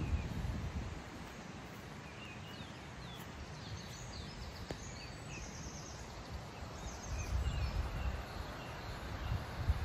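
Small birds chirping in short, high calls over a steady outdoor hiss. A low rumble is heard at the start, fades, and comes back from about seven seconds in.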